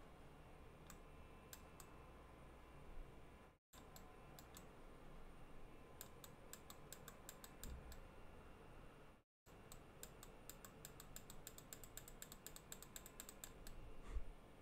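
Faint clicking from working a computer mouse and keyboard: scattered single clicks at first, then a quick run of many clicks in the last few seconds.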